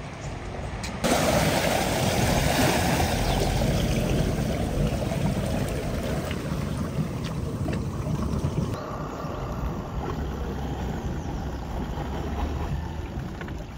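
A motor vehicle driving through deep floodwater: a low engine rumble under loud rushing and splashing water. The sound jumps up suddenly about a second in and changes abruptly again around nine seconds in.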